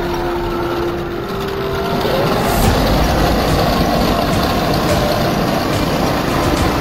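A 1/16 Heng Long Leopard 2A6 RC tank driving through a shallow puddle. Its onboard speaker plays a simulated tank-engine sound over the whine of the small electric gear motors, and water splashes around the tracks.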